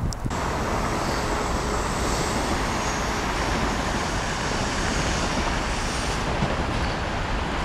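Steady noise of dense road traffic on a busy multi-lane highway below.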